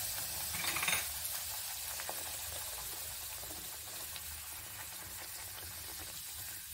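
Hot oil sizzling steadily around a sweet pumpkin puri (gharga) deep-frying in a kadhai. The sizzle swells briefly about a second in and eases a little toward the end.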